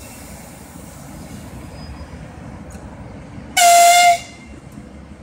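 ED4M electric train giving one short horn blast, a loud single high tone lasting about half a second, a little past halfway through, over a steady low rumble.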